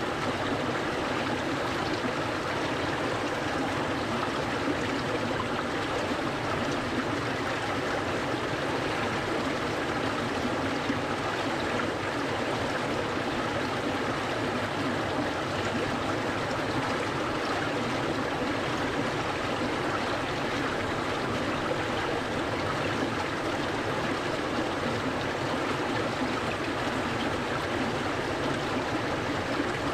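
A clear, cold-water stream flowing steadily, an even rush and babble of water.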